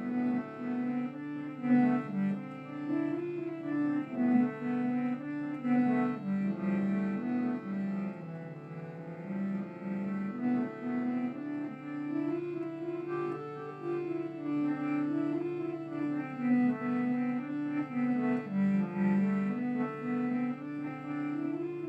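Slow instrumental music: a melody of held notes rising and falling over a steady low drone.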